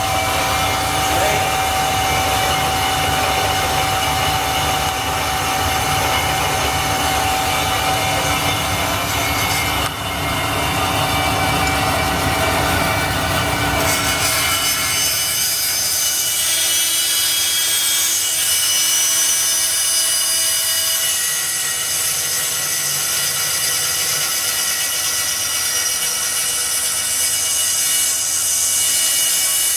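Grob vertical band saw running, with a steady machine hum and a fixed whine from its motor and gearbox. About halfway through, the low hum falls away and a steady high hiss takes over as the band blade cuts metal.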